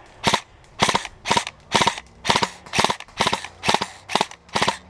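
Airsoft gun firing single shots in a steady string, about ten shots at roughly two a second.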